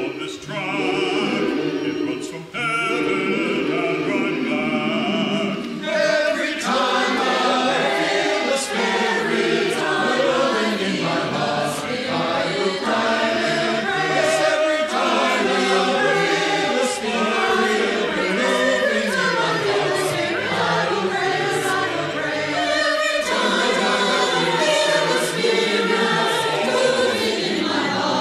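A choir singing, the voices thinner at first and filling out into a fuller sound about six seconds in.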